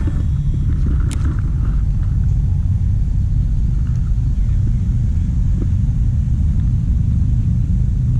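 Steady low rumble of wind buffeting an outdoor camera microphone, with a single faint click about a second in.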